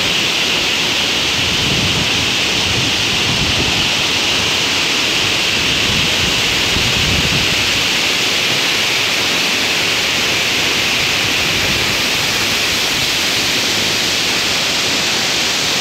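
Tinago Falls pouring into its pool: a steady, loud rush of falling water.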